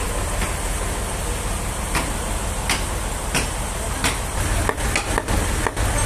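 Steady running noise of sawmill machinery with a low hum, broken by several sharp knocks, about one every two-thirds of a second from two to four seconds in, and more irregular knocks near the end.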